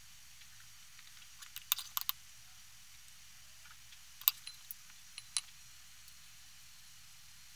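Light clicks and clinks of kitchen dishes and utensils being handled: a quick cluster of several about one and a half to two seconds in, then a few more spread between about four and five and a half seconds in, the sharpest just after four seconds.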